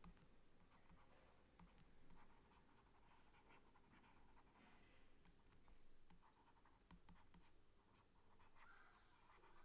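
Faint scratching of a stylus writing by hand on a tablet, in short strokes that come and go, against near silence.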